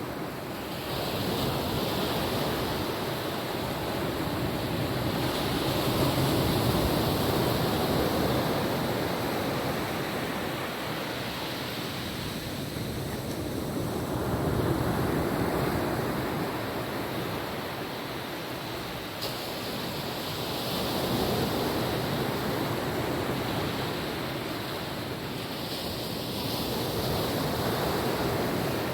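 Gentle ocean waves washing onto a beach, the surf swelling and fading in slow surges every several seconds, with some wind on the microphone.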